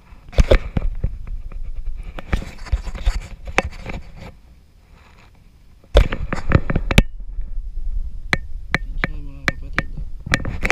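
Knocks, clicks and rumbling handling noise from a spinning rod and reel being moved about right against the camera, in two busy stretches with a short lull between. Near the end comes a quick run of sharp, slightly ringing clicks, about four a second.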